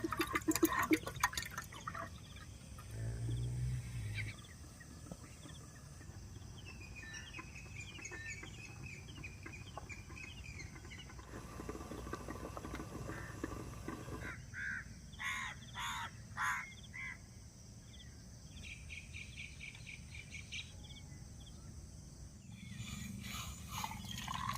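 Birds calling outdoors: a run of small high chirps, then four louder separate calls a few seconds later, then a quick repeated trill, over a quiet background with a few clicks near the start.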